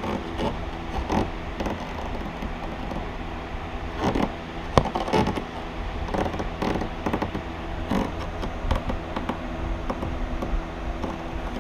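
A motorcycle oil filter being tightened onto the engine: scattered creaks, scrapes and clicks, the sharpest about five seconds in, over a steady background hum.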